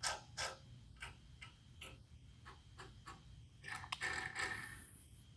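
Light, irregular clicks and ticks from hands handling the metal parts of a vintage horizontal bandsaw, with a short scraping rub about four seconds in.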